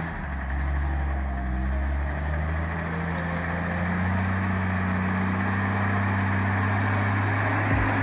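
Engine of a heavily loaded logging truck running steadily under load, its pitch rising slightly partway through and dipping briefly near the end.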